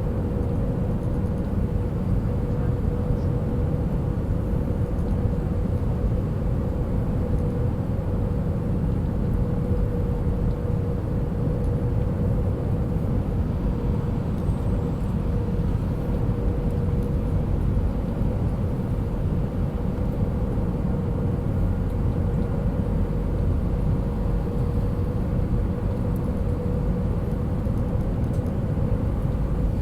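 Steady cabin noise inside a jet airliner on its landing approach: a low rumble of engines and airflow with a steady mid-pitched hum.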